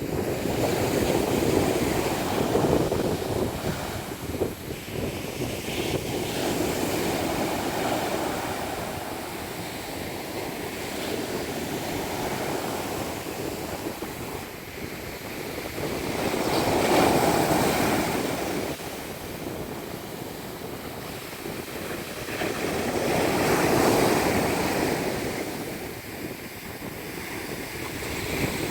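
Sea waves breaking and washing on the shore. The surf rises and falls in slow surges several seconds apart.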